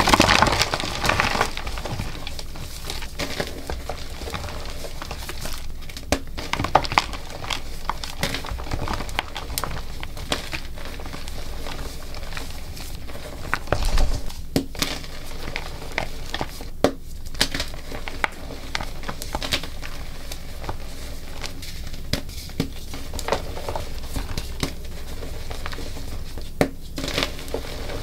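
Dusty purple-dyed gym chalk blocks being crushed and crumbled, a continuous crunching and crackling with sharper cracks now and then. The loudest crunches come right at the start and about halfway through.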